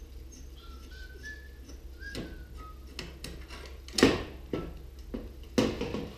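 Clanks and knocks of sheet-metal and pipe parts as the gas distribution manifold is worked loose and pulled off a gas stove, with two loud metal bangs about four and five and a half seconds in. They follow a few short, high-pitched tones.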